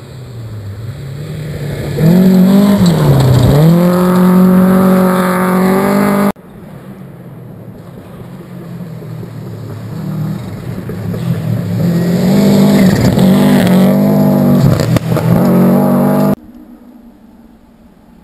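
Rally car engine approaching on a gravel stage, dipping in revs about three seconds in and then revving hard and climbing, loud, before cutting off suddenly about six seconds in. A second rally car then builds up, revving hard with several rises and dips in pitch, and cuts off just as suddenly about sixteen seconds in.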